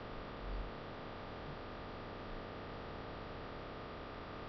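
Steady hiss and faint hum of the recording's background noise, with a brief low rumble near the start.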